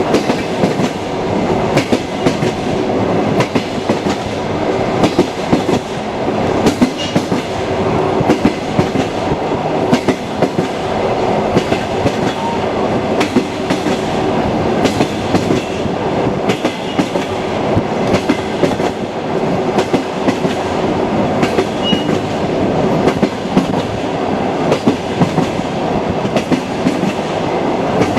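Train wheels clattering over the rails: a steady rumble with a clickety-clack of wheels over rail joints and frequent sharp knocks and rattles.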